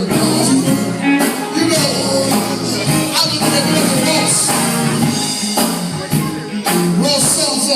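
Gospel music: singing over a band, with sharp percussion hits keeping the beat.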